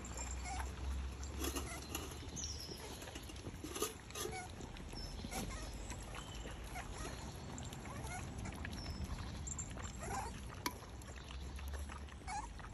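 Cavapoo dogs eating raw minced meat from a stainless steel bowl: wet chewing and licking with scattered short clicks against the metal, and a few brief high squeaks.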